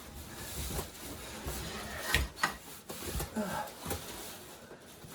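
Cardboard boxes scraping and rubbing against each other as a heavy inner box is dragged out of a tight outer box, with a few knocks and bumps.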